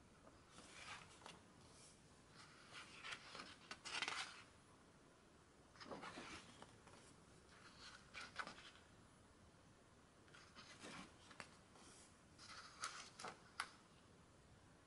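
Thick glossy pages of a photobook being turned by hand: a series of soft papery rustles and slides, one every couple of seconds, the loudest swish about four seconds in.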